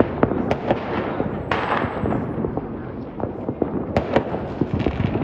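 Fireworks going off continuously: many overlapping bangs and crackles, with a louder hissing burst about one and a half seconds in.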